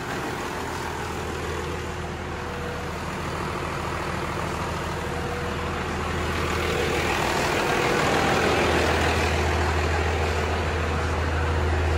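12-valve Cummins inline-six turbo diesel idling steadily on its first start-up after installation, with a low, even running sound. It grows gradually louder partway through.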